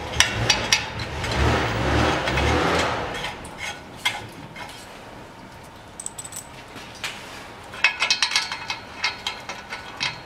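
Rustling handling noise, then light metal clicks and rattles from the spring-loaded bolts and their coil springs being fitted by hand into an exhaust pipe flange joint. Near the end comes a quick run of sharp clicks.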